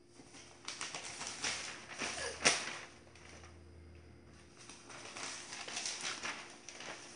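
Handling noises from someone moving about and working with newspaper on a tiled floor: bursts of rustling and scuffing in two spells, with one sharp knock about two and a half seconds in.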